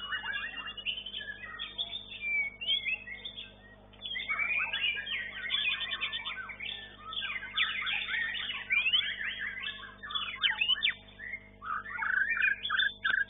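White-rumped shama (murai batu) singing a rapid, varied run of whistled phrases and sweeping notes, pausing briefly about four seconds in.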